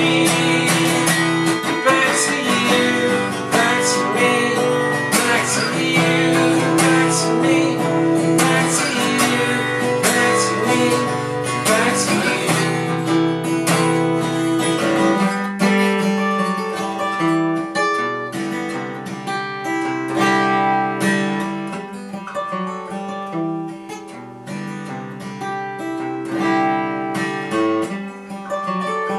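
Acoustic guitar strummed with a man singing over it for about the first half. Then the singing stops and the guitar plays on alone, quieter, in separate picked notes.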